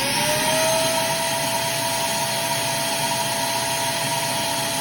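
Electric motor spinning up and then running steadily: a steady whine over a loud rushing hiss, run again to get the air conditioner's raw-water pump to regain its prime.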